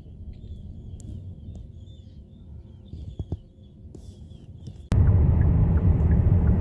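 Birds calling in short repeated chattering cries over a low rumble. About five seconds in, this gives way abruptly to a much louder low rumble.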